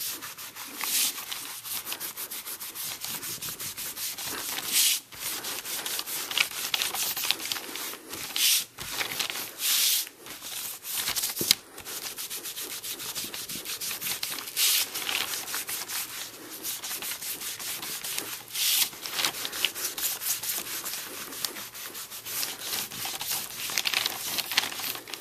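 Rubber-gloved hand working a wool pad back and forth over a leather strap, rubbing dye into the leather: a continuous scratchy scrubbing hiss made of many quick strokes, with a few louder ones every few seconds.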